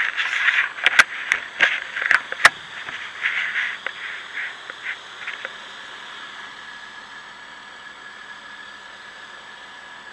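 A burst of sharp knocks and crunching noises over the first few seconds, then a snow-grooming machine's engine running steadily, faint, with a thin high whine in it.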